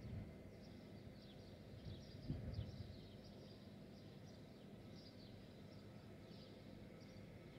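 Sparrows chirping faintly, a quick run of short falling chirps that keeps going, over a low background rumble, with a soft low thump about two seconds in.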